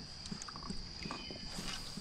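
Faint creekside ambience from a kayak: a steady high-pitched insect drone, with small scattered knocks of gear against the plastic kayak hull and a brief swish a little past halfway.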